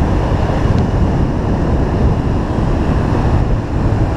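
Wind buffeting the camera microphone on a moving Honda CB300 motorcycle, a steady loud rush, with the bike's single-cylinder engine running underneath.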